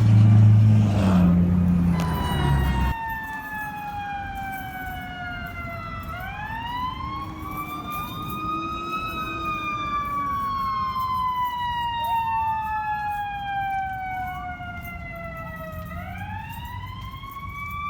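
Loud low vehicle rumble that cuts off abruptly about three seconds in, then several emergency-vehicle sirens wailing together, each in long slow falls and rises that overlap.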